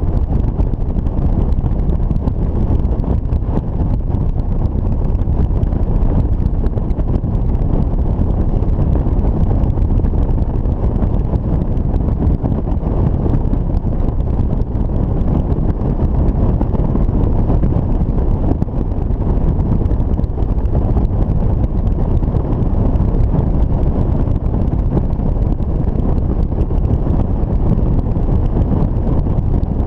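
Steady wind rushing over the microphone of a camera on a motorcycle cruising at road speed, a low, even rumble of wind and road noise with no changes.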